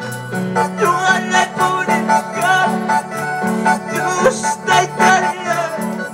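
Live worship band music played through a PA: electronic keyboard with a repeating bass line, a steady beat and a wavering, vibrato melody line.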